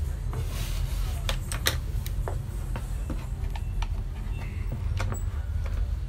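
Scattered light clicks and knocks of a Braun K700 food processor's plastic housing and parts being handled and turned over, over a steady low rumble.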